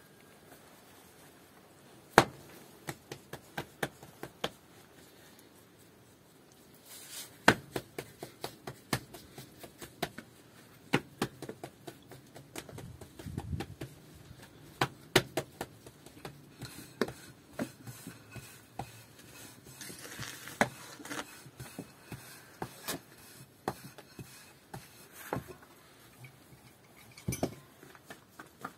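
Irregular sharp taps and knocks, often several a second, as of hard objects being handled and struck, with the loudest knock about two seconds in.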